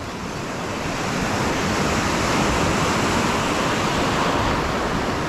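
Ocean surf breaking and washing up the beach: a steady rush of water that swells over the first couple of seconds, then holds.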